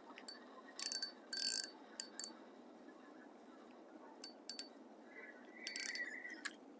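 Scattered short, sharp clicks and light metallic ticks from fishing tackle as a hooked crappie is reeled in, over a faint steady hiss.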